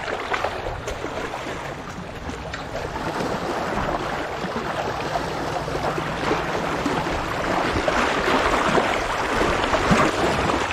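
Small waves lapping and splashing against shoreline rocks at the water's edge.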